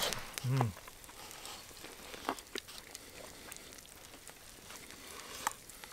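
Low, quiet campfire crackle: a soft hiss with scattered faint pops and ticks, after a short vocal sound about half a second in.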